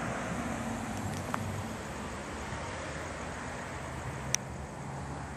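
Street traffic noise: a car's tyre and engine noise easing off as it moves away, over a steady hum of distant traffic. A sharp click about four seconds in.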